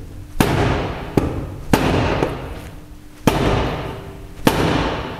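A wooden batten struck five times against the seized screw-on top of a plastic pneumatic fluid-extractor pump, trying to knock the stuck top loose. Sharp, unevenly spaced knocks, each with a short ringing tail.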